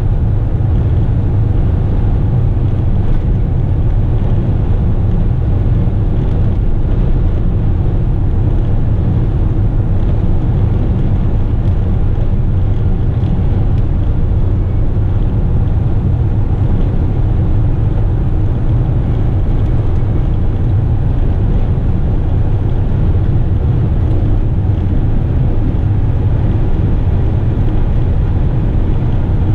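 Western Star tipper truck cruising steadily at highway speed, fully loaded, heard from inside the cab: an even, low engine and road drone that holds the same pace throughout.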